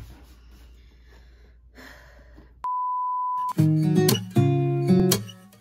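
Faint room tone, then a steady electronic beep of just under a second, then strummed acoustic guitar chords begin as background music.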